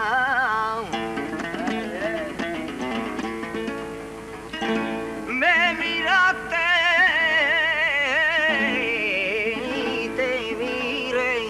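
A man singing long, ornamented phrases with a wide vibrato, accompanied by a plucked guitar. The voice breaks off about a second in, the guitar carries on alone for a few seconds, and the voice comes back in about halfway through.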